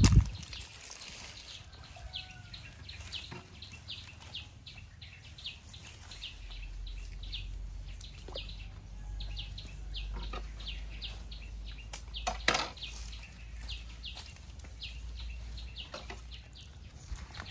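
A bird chirping over and over, about two to three short high chirps a second, with a thump at the very start and another about twelve and a half seconds in.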